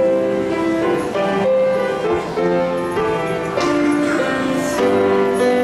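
Piano playing a hymn tune, a melody over chords, starting suddenly; the notes change two or three times a second.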